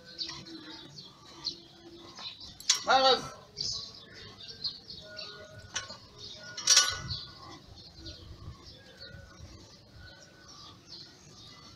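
Small birds chirping continuously. A short, loud call falling in pitch comes about three seconds in, and a sharp, noisy sound near seven seconds.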